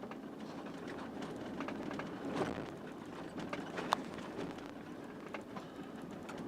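Truck rolling slowly along a gravel road: a steady rumble of tyres on gravel with scattered clicks and knocks of loose stones, one sharper tick about four seconds in.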